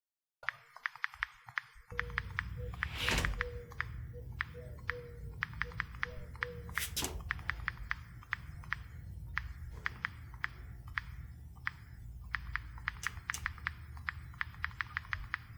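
Smartphone on-screen keyboard key clicks: quick, irregular taps as a Wi-Fi password is typed in, over a steady low rumble. Two brief louder rushes of noise come about three and seven seconds in.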